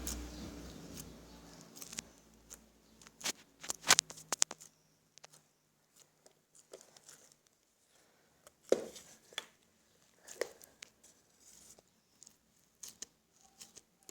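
Slime being squeezed and stretched by hand, giving an irregular string of sticky crackles, pops and clicks. The sharpest pops come about four seconds in and again near nine seconds.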